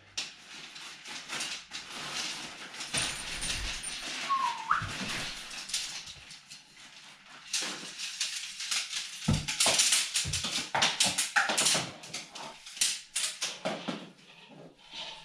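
Tent poles being unfolded and assembled, their sections clicking and knocking together amid rustling of tent fabric and stuff sack, in an irregular run of clicks. A dog whines briefly about four and a half seconds in.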